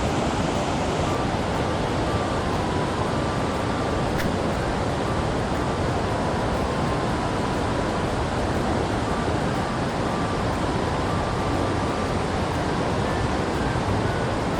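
Steady rush of a mountain stream's flowing water, an even hiss with no change in level.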